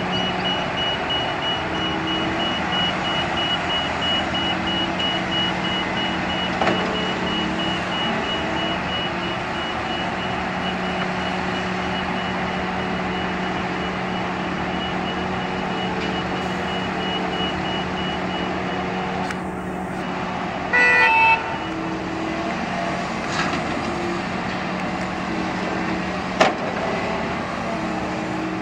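Diesel engines of Volvo excavators and tipper trucks running steadily on an earthworks site, with a reversing alarm beeping through the first half. A short horn toot comes about 21 seconds in, and a single sharp knock follows about five seconds later.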